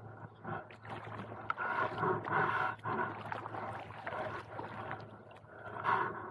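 Kayak paddle strokes splashing and sloshing in the water, in uneven bursts.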